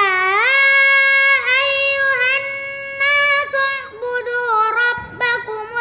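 A young girl chanting a Quran recitation (tilawah) in the melodic murottal style. She sings long held notes that slide through ornamented pitch turns, with a short break for breath about five seconds in.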